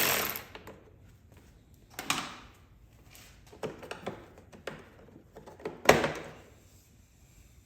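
Hand work on a snowmobile with tools: a short burst of scraping noise, then scattered clicks and knocks of tools and parts being handled, the sharpest near six seconds in.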